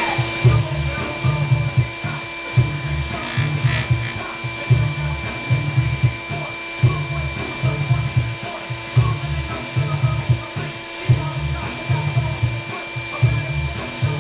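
Sandpaper rubbing against an EVA foam rod grip as it spins on a lathe, over the lathe motor's steady whine. A low hum swells and fades about once a second.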